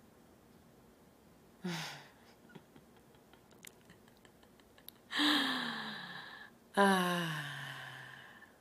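A woman's voice sighing three times, each with a falling pitch: a short sigh about two seconds in, then two long, breathy sighs, one about five seconds in and the next straight after it.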